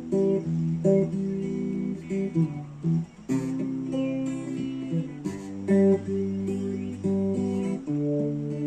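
Acoustic guitar strumming chords in an instrumental break between sung verses, the chords changing every second or so.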